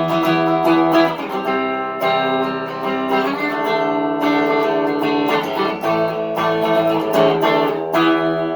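Electric guitar played through its bridge humbucker pickup (a GFS Lil' Killer), strumming a chord progression with chords struck about once a second.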